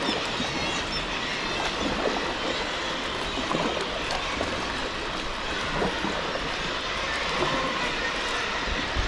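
Steady din of a seabird colony, many overlapping calls at once, over the rushing noise of sea water at the cliffs.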